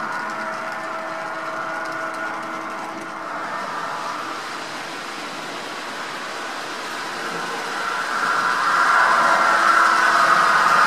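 Model freight train running on the layout, pulled by PRR P5b and GG1 electric locomotive models: the cars rolling on the track with the steady hum and whine of the electric locomotive sound, one fitted with a LokSound decoder. The sound grows louder about eight seconds in as the locomotives come out of the tunnel toward the camera.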